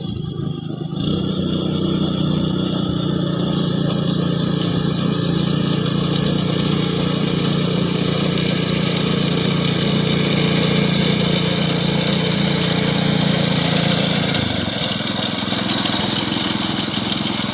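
Engine of a paddy-harvesting machine running steadily under load. It comes up to speed in the first second, holds an even note, then drops to a lower, rougher note about three seconds before the end.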